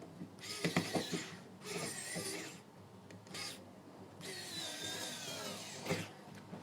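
Small electric screwdriver driving screws back in, in four short runs with a wavering motor whine, the last run the longest. A sharp click follows near the end.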